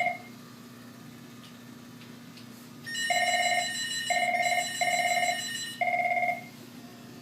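Business phone ringing with an electronic ring: short two-tone beeps, in pairs, start about three seconds in and stop shortly before the end.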